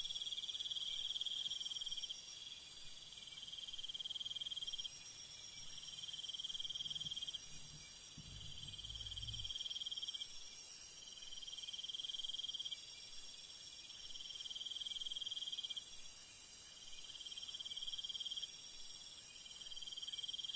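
A forest insect chorus: a steady high-pitched shrilling, with a chirring trill over it that comes in phrases of about two seconds, separated by short pauses.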